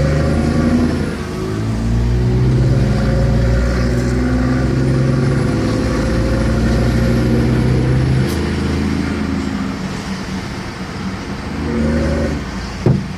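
A 380 hp Cummins diesel engine in a Yutong ZK6129HE coach running steadily under load with a brief dip about a second in. About eight seconds in the engine note falls away and turns rougher, and there is a short sharp click near the end.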